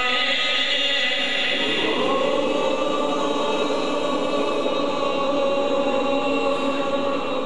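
A man singing a naat (devotional verse) unmetred in long, drawn-out held notes, moving to a new sustained note about two seconds in.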